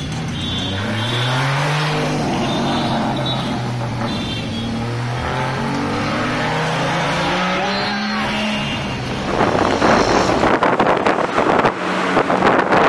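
Sports car engines accelerating away, the engine note climbing sharply in the first couple of seconds and then more slowly through the middle. From about ten seconds heavy wind buffeting on the microphone from a moving vehicle takes over.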